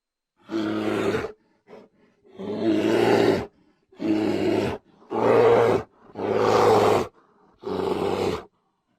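Bear roaring over and over: about six roars of roughly a second each, with short silent breaks between them.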